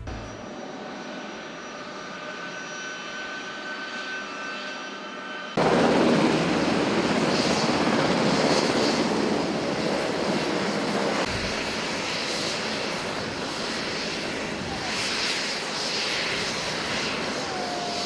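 Aircraft engines running: a steady hum with a thin high whine for about the first five seconds, then, after a sudden cut, a louder steady rushing engine noise.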